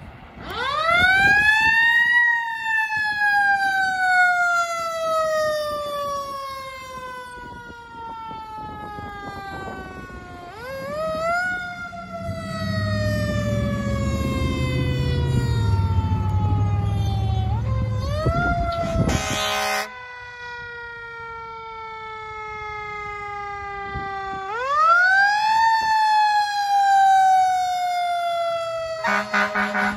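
Fire apparatus mechanical Q sirens wailing. Each winds up over about a second and a half, then slowly winds down for several seconds, and they start up four times. Short air horn blasts sound about two-thirds of the way through and again near the end, and a heavy truck's engine rumble swells in the middle as it passes.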